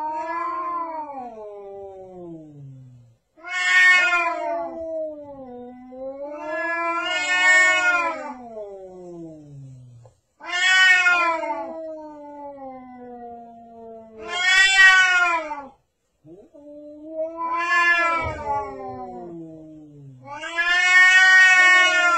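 Domestic cat caterwauling: a series of about six long, drawn-out yowls, each two to four seconds, wavering up and down in pitch. It is the warning yowl of a cat squaring off against another cat.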